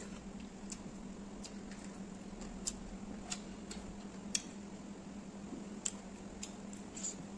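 Close-miked eating sounds: scattered sharp, wet clicks and smacks of a mouth chewing chicken and rice, irregular, about one every half second to second, over a steady low hum.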